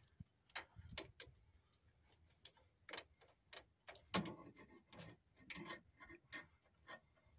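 Faint, irregular metallic clicks and taps from hand tools working on the front wheel hub assembly, roughly one or two a second, loudest a little past the middle.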